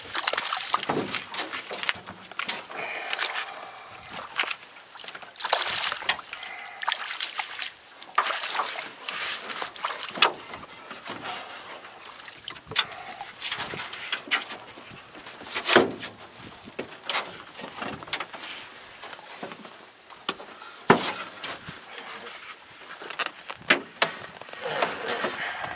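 Water sloshing and splashing as a walleye is landed in a landing net alongside a small aluminium fishing boat, with irregular knocks and clatter of the net and fish against the boat.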